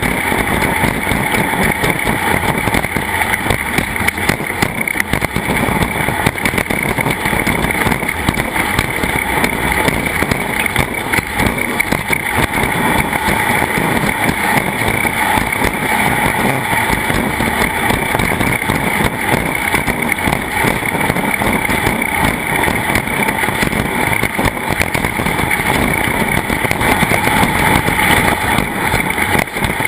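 Engine noise of a vehicle running at speed in a race, steady and loud, mixed with a constant rushing noise, with no rise or fall in pitch.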